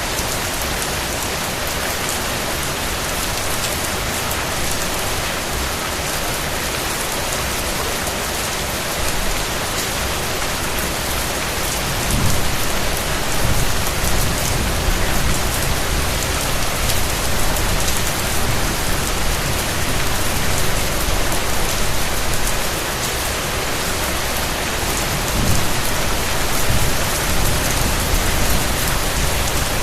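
Steady, even rain falling. A deeper low rumble joins it about twelve seconds in and swells again near the end.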